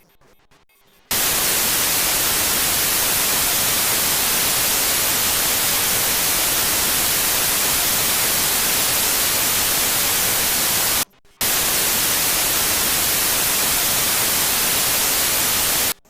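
Loud, even static hiss, the no-signal noise of a dead broadcast channel. It starts abruptly about a second in, drops out for a split second about two-thirds of the way through, and cuts off abruptly near the end.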